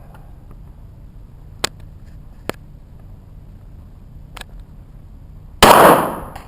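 Smith & Wesson .22 pistol being fired: two sharp cracks a little under a second apart, about a second and a half in, and a fainter one about two seconds later. Near the end comes a much louder bang that dies away over most of a second.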